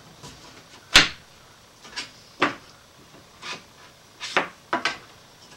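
Festool aluminium guide rail and a small wooden spacer block being shifted and knocked against the perforated table top and a bench dog: one sharp knock about a second in, then several softer knocks and scrapes.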